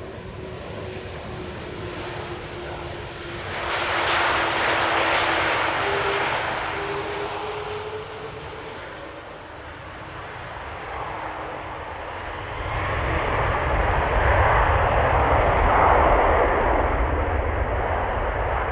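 Airbus A330-200MRTT tanker's Rolls-Royce Trent 700 turbofans during a touch-and-go run. The jet noise swells about four seconds in as the aircraft rolls past. From about twelve seconds a deep rumble builds as the engines go to takeoff thrust, loudest just before liftoff.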